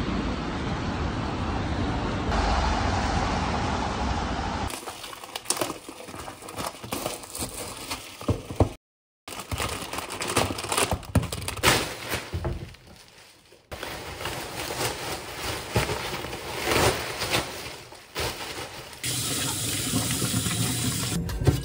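A run of everyday handling sounds: first a steady low rumble of outdoor noise, then plastic-wrapped toilet-roll packs crinkling and being set down. Near the end a kitchen tap runs into a stainless steel sink with a steady hiss.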